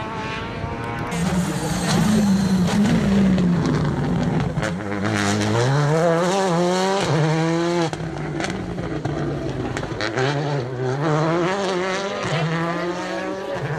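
A rally car driven hard through a corner and away: engine revs climbing and dropping in steps as it shifts gears, with a few sharp pops.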